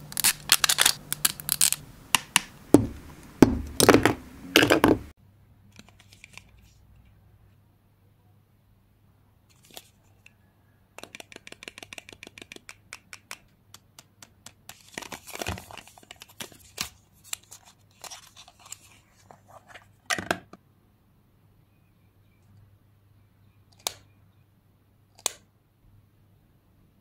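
Cosmetic packaging being handled and opened. For the first few seconds it tears and crackles loudly. Later comes a quick run of small clicks, then a few sharp single clicks near the end as a lipstick tube's cap is pulled off.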